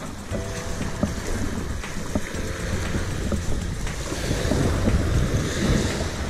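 Small waves breaking and washing up the beach at the water's edge, with wind buffeting the microphone as a steady low rumble.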